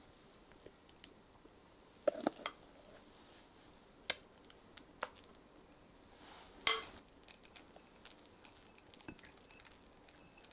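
A metal icing spatula making scattered light clinks and taps against dishes while whipped cream is scooped onto a cake. There is a cluster of three about two seconds in, single taps a little later, and the loudest clink just before seven seconds.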